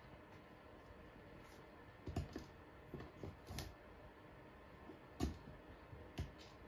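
Faint, irregular light taps and clicks of kittens' paws and claws on a plastic step stool and hard floor, in small clusters, the loudest about five seconds in.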